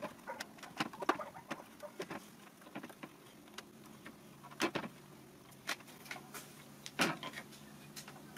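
Irregular light clicks and knocks as a plastic-handled screwdriver and tensioned cord are handled against a wooden headboard frame, with two louder knocks about halfway through and near the end.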